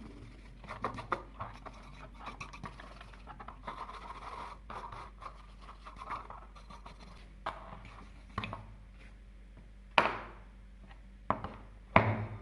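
Hand scraping and rubbing on the corroded metal tool, in uneven strokes, as rust is worked off by hand. In the second half the strokes thin out and there are several sharp knocks, the loudest two near the end.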